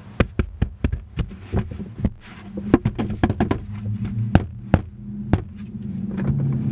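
A quick, irregular run of sharp knocks and taps, several a second, over a low steady hum that grows louder near the end.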